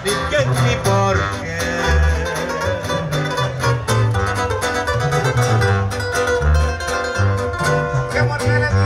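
Live band playing a corrido through a loud sound system, an instrumental passage with plucked strings carrying the melody over a deep bass line that changes note about twice a second and a steady beat.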